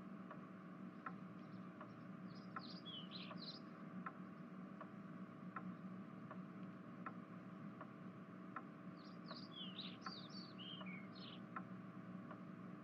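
Faint, steady ticking, about four ticks every three seconds, over a low steady hum, with two short runs of bird chirps: one a couple of seconds in and another just past the middle.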